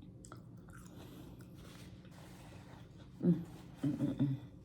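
Someone quietly chewing yellow watermelon, with faint wet mouth clicks. A short low mouth sound comes about three seconds in and a few more near the end.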